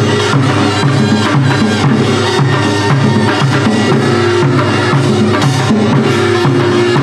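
Upbeat Korean traditional-fusion music with a steady drum beat and a repeating bass line.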